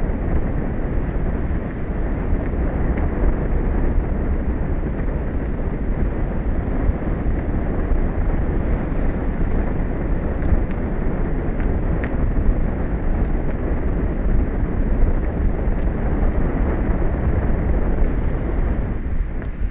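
Wind buffeting the microphone: a loud, steady, low rumble with no breaks.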